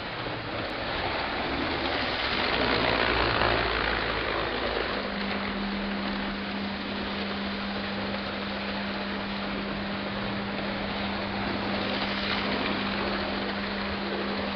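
British InterCity train running, a steady noisy rumble that swells about two to four seconds in. A steady hum sets in about five seconds in and holds.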